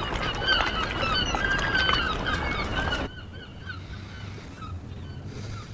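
A flock of waterbirds giving many short, repeated calls over a low, steady rumble. The calls are dense for about three seconds, then drop off sharply and carry on faintly.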